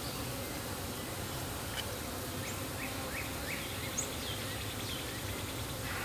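Steady buzzing of a mass of honeybees out of a newly opened package, with a few faint, short high chirps around the middle.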